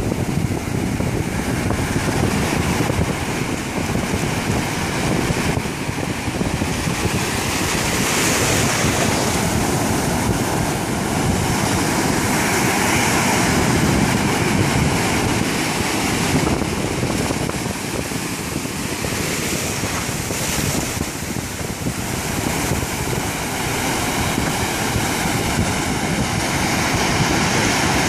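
Ocean surf breaking and washing in, a continuous rushing roar of foaming water that swells and eases several times as successive waves break.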